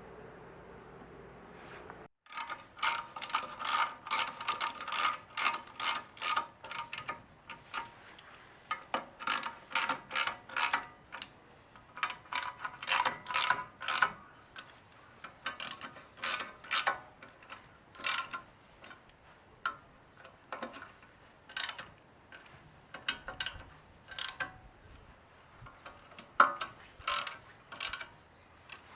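Hand ratchet wrench clicking in quick runs of metallic clicks with short pauses between, starting about two seconds in.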